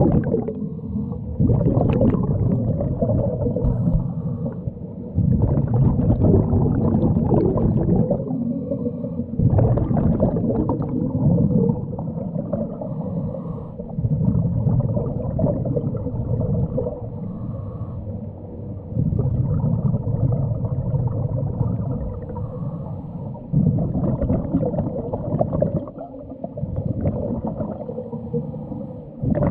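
Scuba regulator breathing heard underwater: a muffled, mostly low cycle of inhalations and exhaled bubbles, loud and quieter stretches alternating every few seconds.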